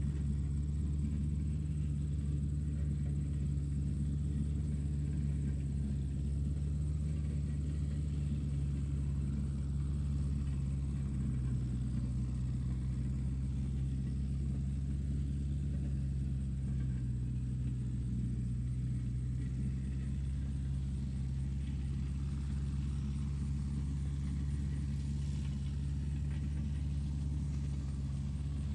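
Tractor engine running steadily at a constant speed, a low even drone with no change in pitch or loudness.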